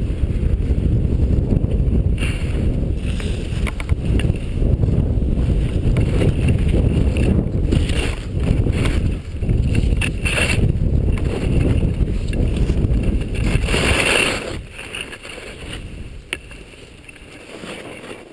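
Wind buffeting a helmet-mounted GoPro's microphone as a skier runs downhill, with the hiss and scrape of ski edges on snow through the turns. About fourteen seconds in, a longer scrape as the skis slow, and the wind rumble drops away.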